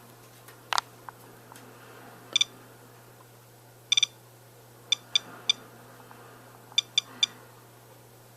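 Geiger counter chirping with short, high beeps at irregular, random intervals, about one a second and sometimes two or three close together, as it counts radiation from an ionization smoke detector held to it. A single sharp click sounds about a second in.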